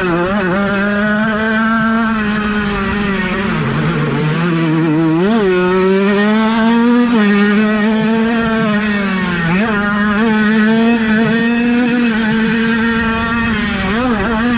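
Small 50cc two-stroke motocross bike engine at high revs, its pitch dropping as the throttle is eased and climbing again several times.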